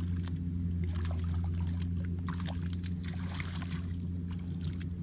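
Hands splashing and squelching in shallow muddy water as they feel for fish, in short scattered splashes, over a steady low hum.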